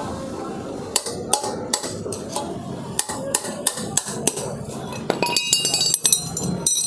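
Sharp metal-on-metal knocks and clinks, a hammer or drift tapping at a motorcycle wheel bearing about two to three times a second. Near the end comes a quicker cluster of ringing metallic strikes. The bearing is worn loose and broken.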